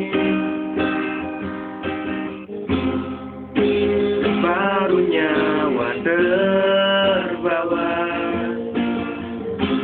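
Music: an Indonesian pop song with guitar accompaniment and a melodic voice line between the sung lyrics.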